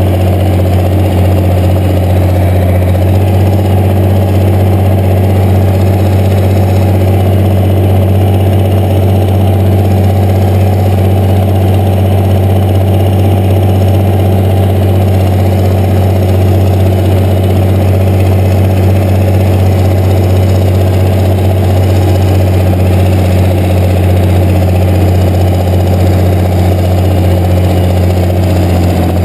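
International 1066 tractor's engine running steadily at low, even speed as the tractor drives slowly, with a loud, constant low hum and no revving.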